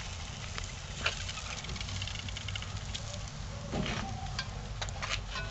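Rabbit pieces sizzling in oil in a hot cast-iron skillet on a charcoal grill: a steady hiss with scattered pops and crackles.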